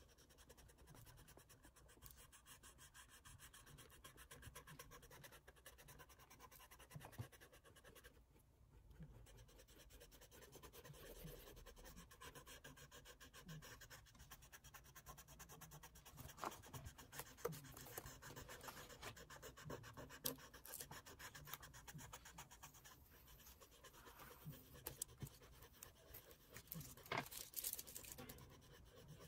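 Faint scratching of an oil pastel stick rubbed across sketchbook paper in many short strokes, with a few sharper, louder scrapes in the second half.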